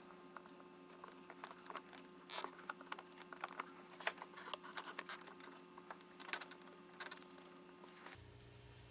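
Faint, irregular light clicks and ticks of small plastic parts being handled, as a new zip tie is fitted through a battery cable hold-down clamp, over a faint steady hum.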